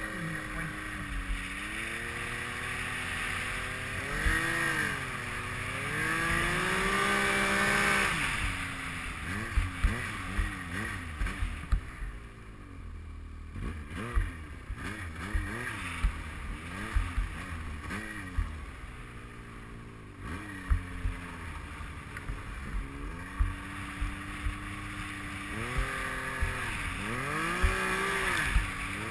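Yamaha Nytro snowmobile's four-stroke three-cylinder engine revving up and down with the throttle while riding through deep powder. It is strongest about four to eight seconds in and again near the end, and lighter and choppier in the middle. A steady hiss runs underneath, and short sharp knocks come now and then.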